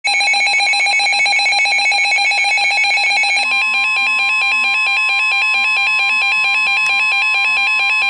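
Weather alert radios sounding a severe thunderstorm warning alarm: rapid, high-pitched pulsing beeps, loud and unbroken. About three and a half seconds in the beep pattern changes and a steady tone just above 1 kHz joins in, the NOAA Weather Radio warning alarm tone.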